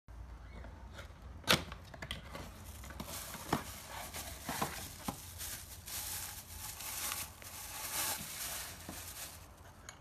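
Unboxing noises: a few sharp knocks as a cardboard box is handled and opened, the loudest about a second and a half in, then plastic bag wrapping crinkling as a siren horn is unwrapped, stopping just before the end.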